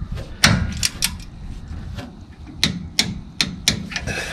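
Torque wrench working the bolts of a new left rear brake caliper on a 2008 Ford F250, giving sharp metallic clicks in two groups of about four: one group in the first second and a half, the other from a little before three seconds in. The bolts are being brought to 26 foot-pounds.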